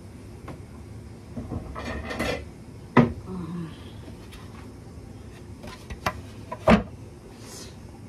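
Kitchen cookware and utensils being handled: scattered clatter with two sharp knocks, one about three seconds in and one near the end, and a brief rustle before the first.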